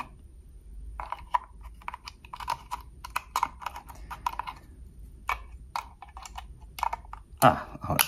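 Hard plastic clicking and scraping as a UK plug head is worked onto a plug-in power adapter by hand, in short irregular clicks. These are fumbling attempts to snap it on while it is the wrong way up.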